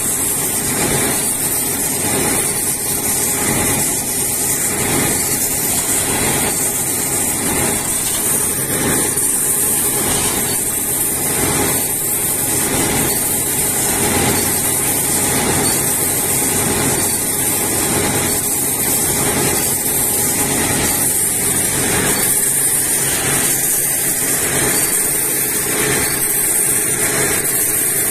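Water-well drilling rig running steadily under load, its engine and rotary head turning the drill string down the borehole through wet clay.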